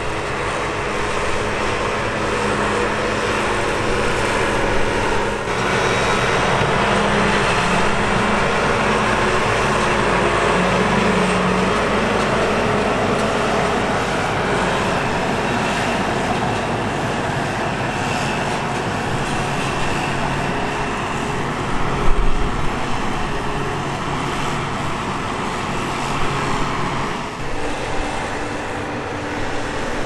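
New Holland CR10.90 combine harvesters running: a steady diesel engine and threshing-machinery drone. The engine note shifts about five seconds in and again near the end, with a brief low thump a little after two-thirds of the way through.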